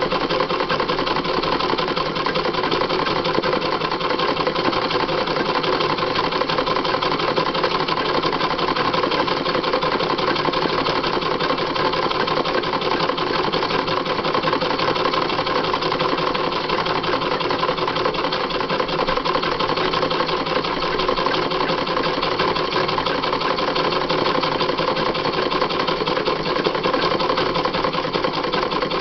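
Sewing machine stitching fast and steadily without a pause during free-motion embroidery, the needle running continuously as the hooped fabric is moved by hand under it.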